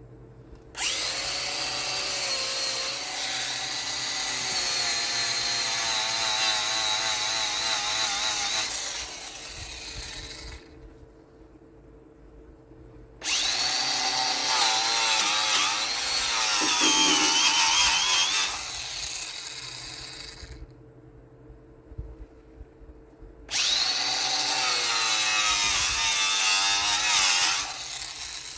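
Angle grinder run three times for several seconds each, its pitch wavering as it is pressed against steel and winding down after each run.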